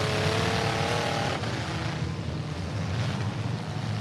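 Engines of several demolition-derby compact cars running and revving together. A high, slightly rising engine note stands out over the mass of engines and drops away abruptly about a second and a half in.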